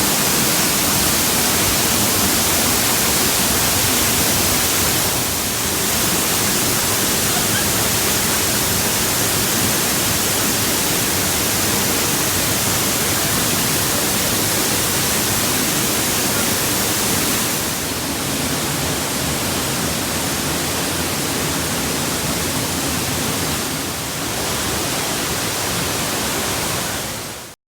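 Steady roar of the 80-foot Dry Falls on the Cullasaja River, heavy water falling and crashing. The level shifts slightly three times, and the sound cuts off abruptly near the end.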